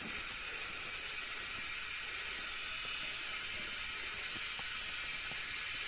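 A forest insect chorus, a steady high-pitched shrill drone, with a couple of faint clicks near the start.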